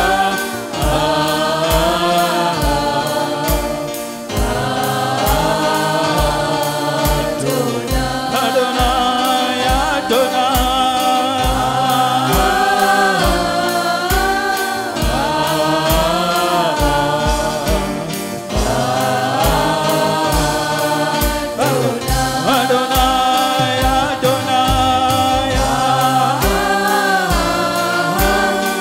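Worship music: a man singing a slow praise song into a microphone over sustained keyboard chords and a steady drum beat.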